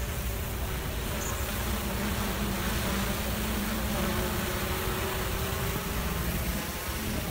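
Hexacopter drone's propellers buzzing steadily as it flies overhead.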